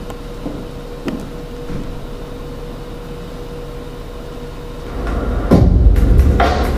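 Film-excerpt soundtrack: a quiet ambience with a faint steady hum and a few soft knocks, then about five seconds in a loud low rumble with repeated heavy thumps starts.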